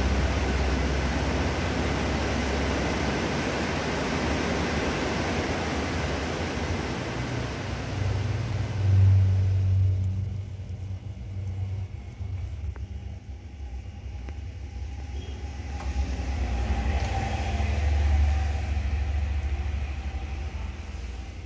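Low rumbling background noise with hiss, swelling once just before it drops sharply about ten seconds in to a quieter low hum.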